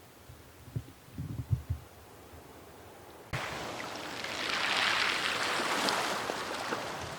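Sea surf: a few low wind thumps on the microphone, then about three seconds in a sudden rush of washing water that swells and slowly ebbs as a wave comes in.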